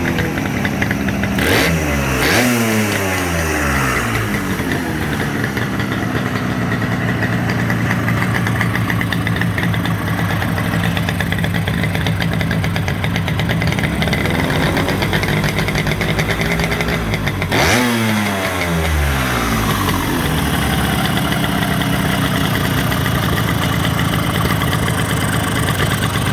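Bridgestone 350 GTR two-stroke twin motorcycle engine idling with its air filter off, not yet fully tuned; the throttle is blipped twice, about a second and a half in and again near two-thirds through, the pitch jumping and then falling back to idle.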